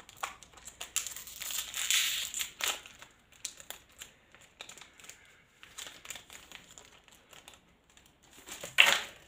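Crinkly wrapper of a Pokémon card pack being handled, in irregular bursts of crackling, loudest just before the end.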